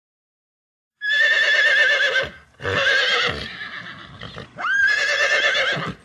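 Horse whinnying: three quavering neighs in quick succession, starting about a second in, the last opening with a sharp rise in pitch.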